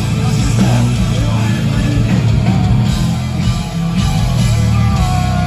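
Heavy metal band playing live: an instrumental passage of electric guitars, bass and drums, loud and dense, with a long held guitar note coming in near the end.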